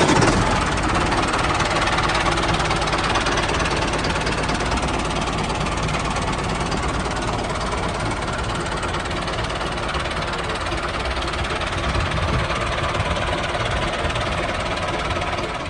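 Mini tractor's small engine running steadily, with a fast knocking pulse.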